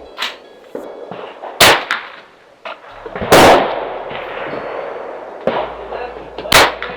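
Rifle shots at a shooting range: three loud cracks a second or more apart, the middle one the loudest with a long echoing tail, after a fainter shot near the start.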